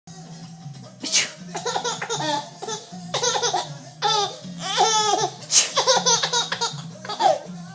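A baby laughing in repeated fits of high-pitched giggles, set off by a woman's sneezes: two sharp sneezes, about a second in and about five and a half seconds in, each followed by the baby's laughter.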